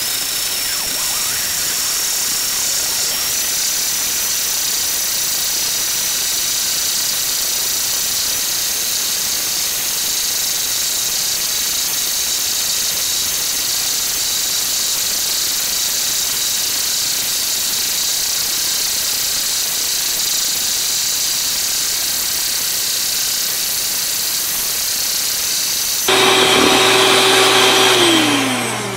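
HOMEJOY electric hand mixer running steadily on low, its beaters whipping heavy cream in a stainless steel bowl, with a faint high motor whine. Near the end it gets louder, then its motor winds down as it is switched off.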